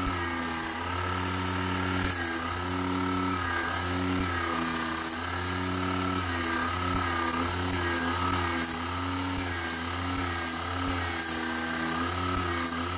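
Homemade generator rig running: a small brushless DC motor spinning a 500-watt permanent-magnet alternator wired to microwave-oven transformers, with a steady hum and a whine that wavers up and down in pitch.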